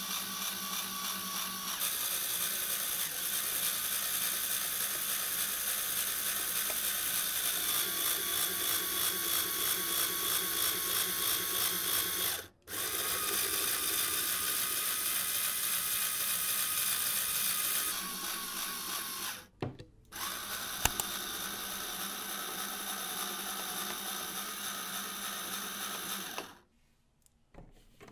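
Small LEGO electric motor whirring as it drives the Technic gear train that turns a wire-bending head, with a regular pulsing from the meshing gears. The run stops briefly twice and cuts out near the end.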